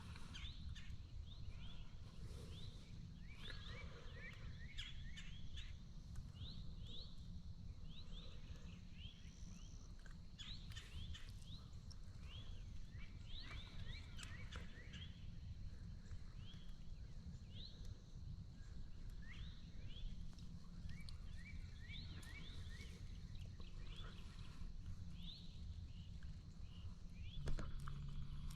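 Small birds chirping on and off, many short quick notes, over a low steady rumble. A brief louder sound comes near the end.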